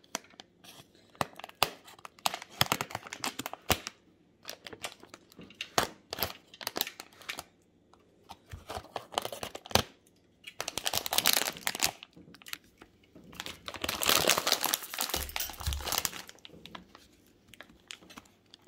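Anti-static plastic bag crinkling and tearing as it is slit open with a small blade and pulled off the electronic unit inside, in irregular crackly bursts with small clicks. It is loudest just past the middle and again about three quarters through.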